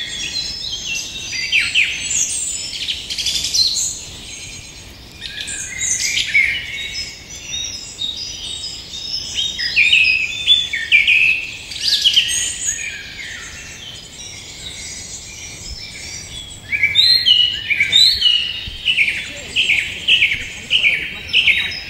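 Several songbirds chirping and singing, with many short overlapping calls. They thin out for a few seconds past the middle, then come back with a quick run of repeated notes near the end.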